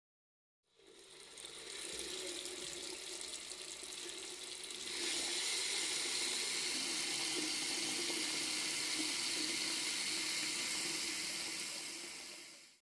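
Water running from an opened faucet, a steady rushing flow that starts about a second in, grows louder and more hissing about five seconds in, and stops suddenly near the end.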